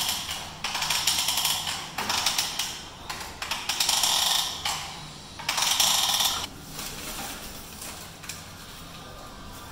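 Power drill run in four short bursts of about a second each, driving fasteners into a sliding patio door frame, then left off near the end.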